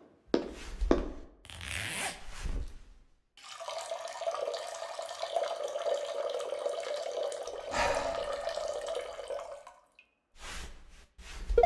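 A man urinating into a wall urinal: a steady stream of liquid splashing, starting about three seconds in and stopping about ten seconds in. A few short rustling noises come before it and one comes near the end.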